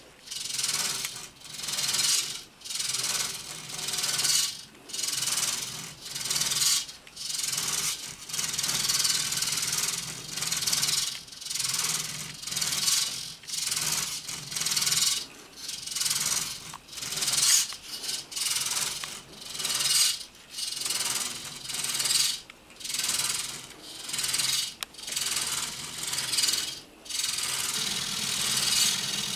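Scraping, rasping noise that swells and fades about every second and a half to two seconds, from the stilt-legged humanoid robot's metal stilt tips on a guitar's strings as it keeps adjusting its balance.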